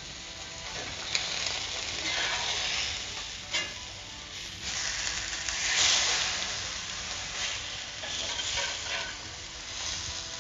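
Plantain halves sizzling as they fry in coconut oil in a cast-iron skillet, with a metal spatula scraping and clicking against the pan as they are turned. The sizzle swells louder twice.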